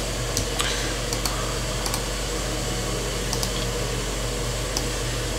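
Steady electrical hum and hiss of the recording setup, with a few faint computer mouse clicks scattered through, several in quick pairs.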